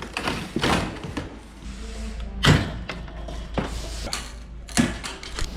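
A series of knocks and thuds, the loudest about two and a half seconds in and another near the end.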